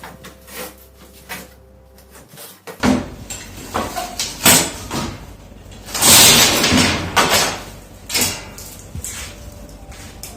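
Knocks, clatter and several longer scrapes from parts being handled while an air-conditioner filter is worked on. The sounds come in quick separate strokes, and the loudest, longest scrape comes about six seconds in.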